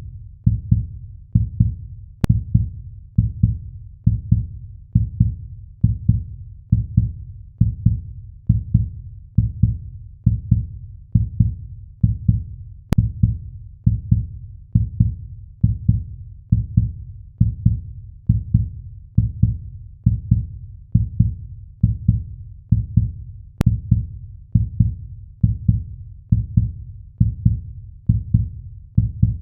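Heartbeat sound effect: deep, even thumps at a steady resting pace of about one and a half beats a second.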